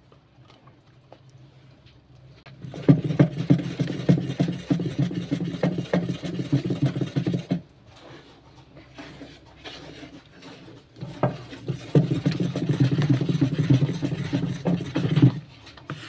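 Wooden paddle stirring fabric softener into a hot soap solution in a plastic basin: liquid swishing, with the paddle scraping and knocking against the basin. It comes in two bouts of brisk stirring, the first starting about three seconds in and the second about eleven seconds in, each lasting four to five seconds.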